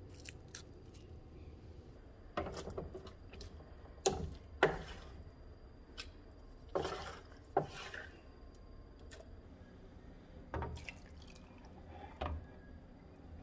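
Wooden spatula scraping and knocking against a metal sheet pan and a plastic blender cup as roasted cherry tomatoes are scooped in, with soft wet plops and drips. About seven separate knocks are spread through the clip, and near the end the pan is tipped to pour its juices into the cup.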